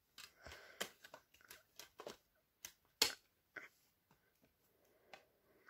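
Faint clicks and rustles of a plastic multi-disc DVD box set case being handled and turned over, with one sharper click about three seconds in.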